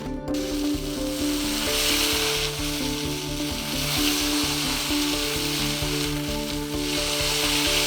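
A steady sizzling hiss, louder around two seconds in and near the end, over background music with a stepping melody.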